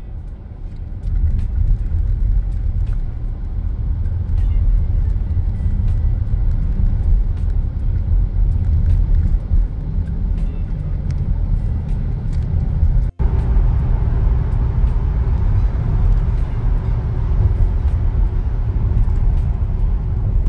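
Steady low rumble of a car's road and engine noise heard inside the cabin while driving on a highway. The sound cuts out for an instant a little after the midpoint.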